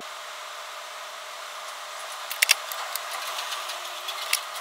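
Steady hiss with a few light clicks as a soldering iron and a strip of LED tape are handled: a quick double tick about halfway through and one more near the end.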